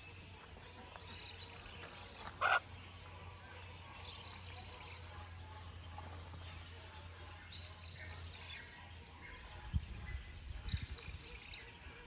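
Birds calling in an aviary. A high, arching call repeats every three to four seconds, and one short, loud, harsh squawk comes about two and a half seconds in. Low thumps come near the end.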